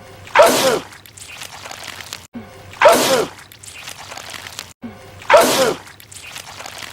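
A man sneezing loudly three times, about two and a half seconds apart. It is the same film sneeze repeated, with a brief cut just before each one.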